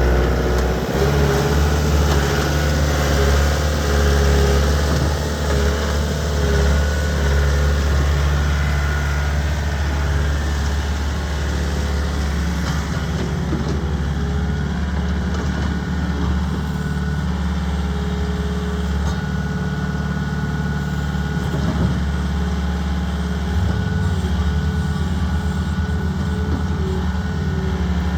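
Bobcat S300 skid steer's diesel engine running steadily. Its pitch shifts about a second in and again near the end.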